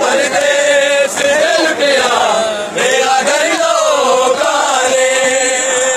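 Group of men chanting a noha, a Shia mourning lament, together in long held notes.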